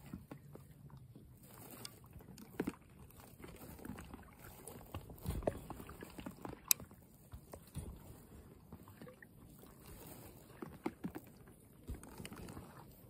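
Double-bladed paddle dipping and splashing in lake water as an inflatable kayak is paddled along, with water dripping off the blades and a few sharp clicks.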